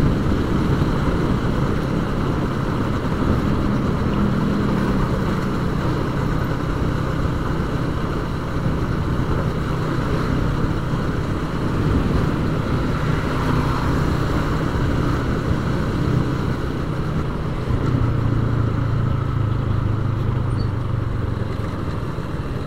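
Yamaha Vixion's single-cylinder four-stroke engine running at a steady riding speed, with wind rushing over the camera microphone. The engine note grows louder for a few seconds near the end.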